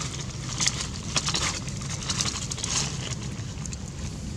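Short scratches, clicks and rustles as macaques pick food from a hand and shift on a wooden ledge, over a steady low rumble.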